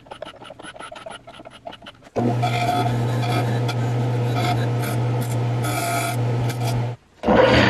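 Quiet ticking for about two seconds, then the jointer's electric motor runs with a steady hum while a hand turning tool scrapes the rim of its spinning plywood pulley, shaving the pulley's crown down. The scraping breaks off briefly near the end and starts again.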